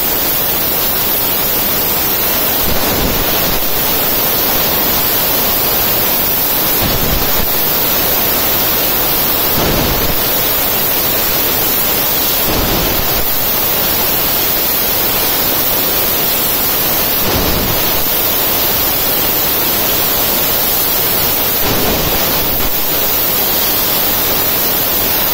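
Laser tube-cutting machine cutting a stainless steel tube: a loud, steady hiss with a few brief surges every few seconds.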